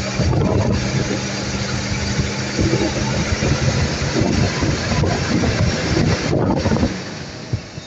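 1980 Mercedes-Benz 450SL's 4.5-litre V8 idling roughly, the uneven idle persisting although the owner has changed most parts on the engine. It gets quieter about a second before the end.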